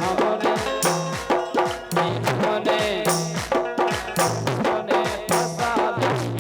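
Instrumental Bundeli folk music: fast drum strikes and rattle-like percussion over a repeating melodic and bass line.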